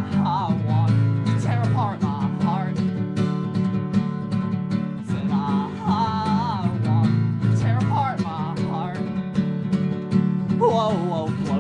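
Two acoustic guitars strummed steadily, with a man's voice singing over them in several short phrases.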